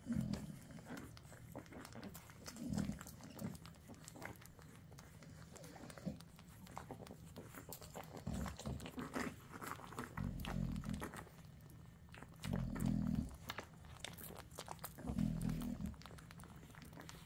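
Nano American Bully puppies nursing from their mother: a run of wet suckling and smacking clicks, with short low grunts every few seconds.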